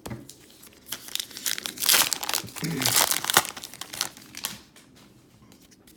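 Baseball card pack wrapper crinkling and tearing as it is ripped open, a burst of crackle lasting a few seconds, loudest in the middle.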